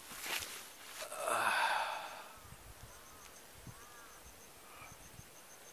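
Two footsteps on a grassy trail, then a heavy sigh-like breath from the runner a little over a second in. After that it is quiet apart from faint high chirps and a brief run of soft regular ticking.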